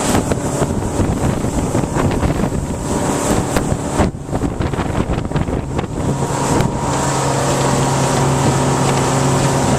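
A 1998 Bayliner 2655 cruiser under way, its 5-litre engine running at speed, with wind buffeting the microphone and water noise. After about six seconds the gusting eases and the engine drone comes through steadier and clearer.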